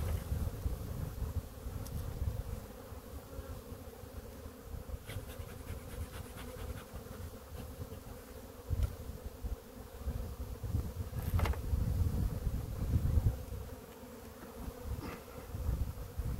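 Honeybees humming steadily around an opened hive. A few knocks and clatters from the wooden hive boxes being handled are heard, the loudest about eleven seconds in.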